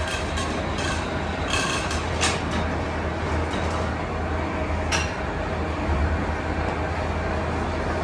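Factory machinery running with a steady low hum, with a few sharp clinks and knocks over the top.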